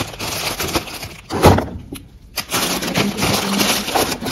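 Plastic snack packets crinkling as they are handled and pushed into a wooden drawer, with one sharp, loud knock about a second and a half in.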